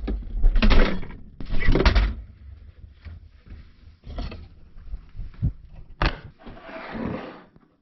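A run of irregular thuds and knocks from handling glass bottles and the refrigerator's shelves and door, with the heaviest thuds in the first two seconds and lighter clicks and knocks after.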